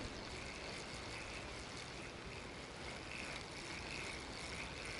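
Steady rush of flowing water, with a faint high whir that swells and fades about once a second.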